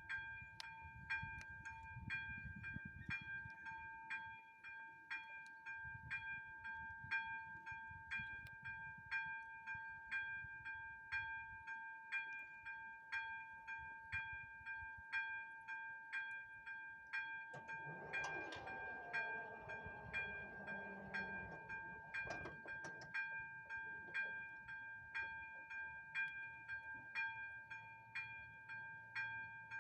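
Electronic ZV-02 level-crossing bell ringing at an AŽD 71 crossing: a steady two-tone ring with a regular strike about once a second, signalling an approaching train. About two-thirds of the way in, a passing vehicle adds a brief swell of noise with a falling pitch.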